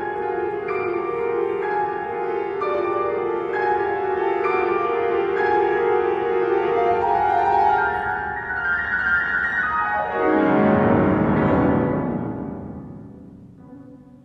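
Grand piano playing classical music: steady figures in the middle register, then about ten seconds in a fast run sweeping down into the bass, landing on a loud low chord that rings and fades away.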